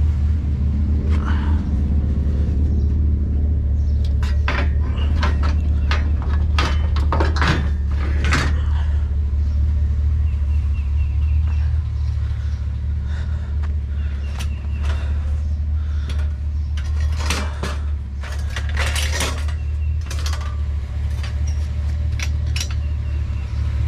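Light scrap metal clanking and rattling as it is handled, a string of irregular sharp knocks, over the steady low hum of an idling vehicle engine.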